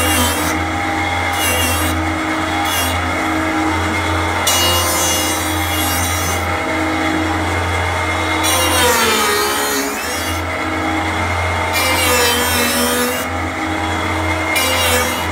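Nesto 3-axis CNC wood lathe turning a wooden blank: the cutter scrapes and shaves the spinning wood in repeated passes over a steady motor hum. About nine seconds in, the pitch dips and then climbs back up.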